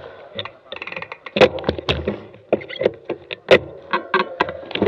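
Mountain bike clattering over rough, loose ground: irregular sharp knocks and rattles from the bike, loudest about a second and a half in and again about three and a half seconds in.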